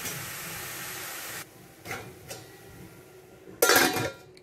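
Grated papaya sizzling in hot oil in a kadhai, a steady hiss that cuts off about a second and a half in. A couple of light knocks follow, then near the end a loud, brief clatter as a stainless steel lid is set onto the pan.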